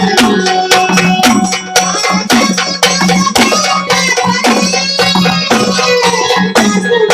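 Marathi gondhal folk music: quick, evenly spaced hand-drum strikes whose pitch bends downward, over a steady low drone.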